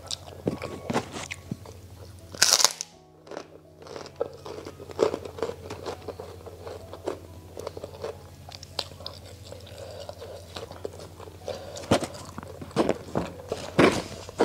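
Close-miked chewing and crunching of crispy fried food, with many short crunches and a loud crunch about two and a half seconds in. Background music plays underneath.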